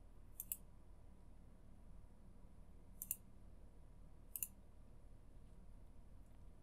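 Computer mouse clicking three times, the first and last as quick pairs of clicks, over a faint low background hum.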